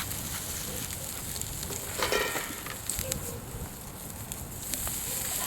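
Wood fire crackling, with scattered sharp pops over a steady noisy bed, and a brief louder burst about two seconds in.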